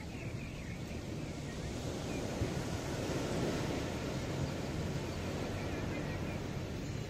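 Ocean surf washing onto a beach, swelling with a breaking wave about three seconds in, over a steady low rumble.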